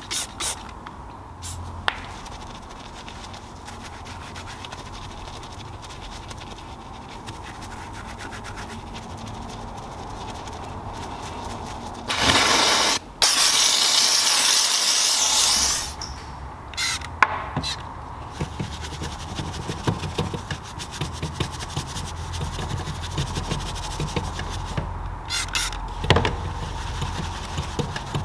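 Car-interior detailing sounds: a short spray hiss at the start, then a long loud spray hiss of about four seconds, broken once, about twelve seconds in. After that a bristle detailing brush scrubs a metal pedal pad with a steady rubbing sound and a few light clicks.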